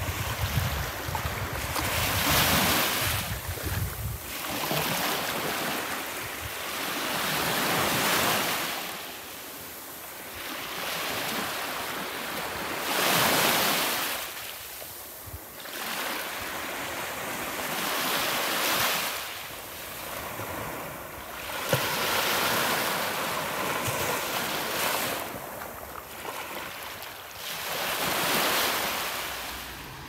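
Gulf of Mexico surf breaking and washing up on the beach, swelling and fading about every five seconds.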